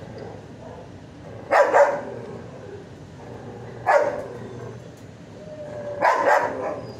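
Dog barking three times, about two seconds apart; the first and last barks come as quick doubles.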